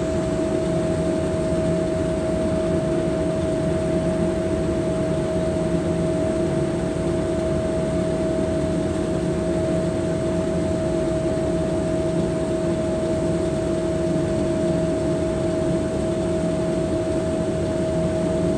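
Steady drone of a towboat's engines and machinery, a constant hum holding one pitch over an even rumble that does not change.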